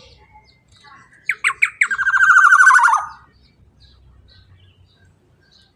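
Black-naped oriole calling: three short down-slurred notes, then one loud, rapidly pulsed note about a second long that drops in pitch at its end.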